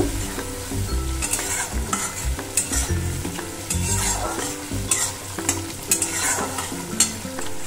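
A wooden spatula stirring and scraping a thick spice paste that sizzles and bubbles in oil in a metal kadai, with repeated scrapes against the pan. The masala is being fried down (koshano) until it is cooked.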